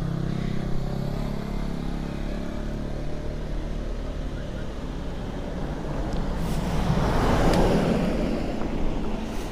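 Highway traffic: a steady low engine hum, then a vehicle passing by, its noise swelling and fading about three-quarters of the way through.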